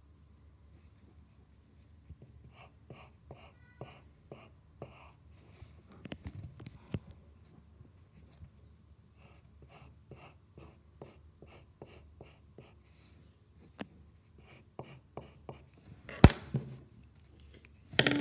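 Graphite pencil scratching on paper in a run of short, quick sketching strokes, a few a second. Near the end there is one sharp knock.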